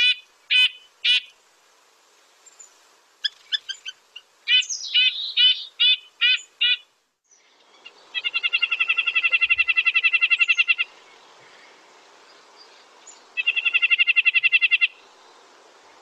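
Red-breasted nuthatch calling and singing: a run of short separate calls, then two rapid, even trills of repeated notes, one about eight seconds in and a shorter one about thirteen seconds in.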